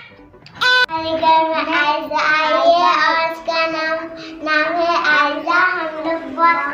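A newborn baby gives one short cry, then a young girl sings, holding steady notes phrase after phrase.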